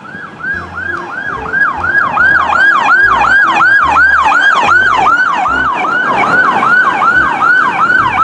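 Electronic police-car siren in a fast wail, each cycle rising sharply and falling back, about three times a second. It grows louder over the first couple of seconds.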